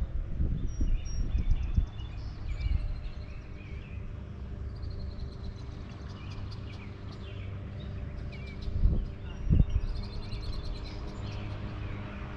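Several small birds chirping and trilling, with short rumbling gusts in the first two seconds and again about nine seconds in, over a faint steady low hum.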